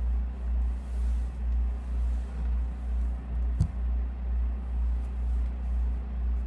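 A steady low rumbling hum that swells and fades about twice a second, with a single sharp click a little past halfway.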